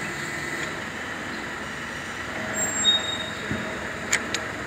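Metal linkage parts of a compact tractor's three-point hitch being handled and fitted together by hand: two light metal clicks near the end and a brief high-pitched squeak about three seconds in, over a steady background hum.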